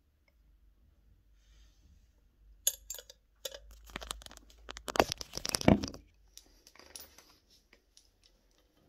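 Handling noise from a phone being picked up and repositioned: rustling, scraping and knocks on the microphone, starting a few seconds in and loudest in the middle, thinning to light ticks near the end.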